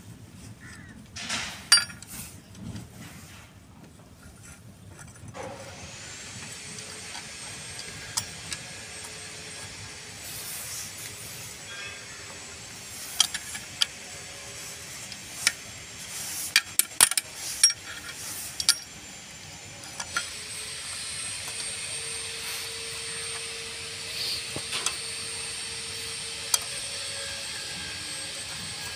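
Ring spanner clinking against the adjusting nuts and gauge bar on a crane engine's clutch pressure plate during clutch adjustment, a scattered run of sharp metallic clicks that come thickest midway. A steady hiss with a faint high whine sets in about five seconds in and continues under them.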